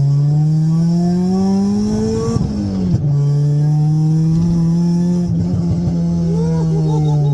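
Honda EK Civic engine and full aftermarket exhaust accelerating hard: the pitch climbs for about two seconds, drops sharply at a gear change, then holds steady under load and falls away near the end. The exhaust has just had its leaks repaired.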